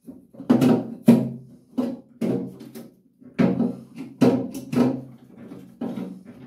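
A plastic toilet cistern being handled and fitted on the wall: a run of short scraping, knocking and creaking strokes, irregular and roughly two a second, with brief pauses.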